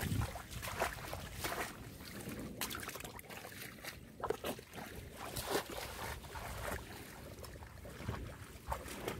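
Shallow muddy water splashing and sloshing in irregular bursts as hands work through it and a large fish is put into a water-filled plastic crate.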